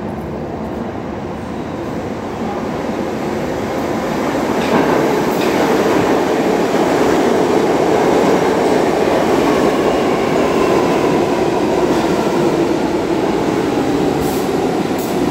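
An R62A subway train pulling into the station. The rumble of its wheels on the rails swells over the first several seconds and stays loud as the cars run past.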